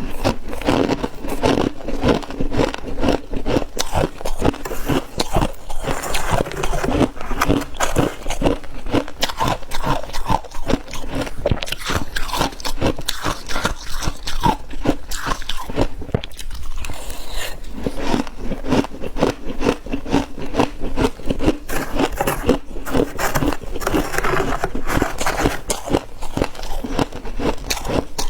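Close-miked crunching and chewing of soft, dry freezer frost, a dense run of crackly bites and chews with a short lull partway through.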